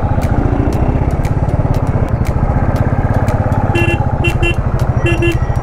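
Royal Enfield Thunderbird 350X's single-cylinder engine running with a steady, even thump while the bike is ridden. Several short horn beeps come in from about four seconds in.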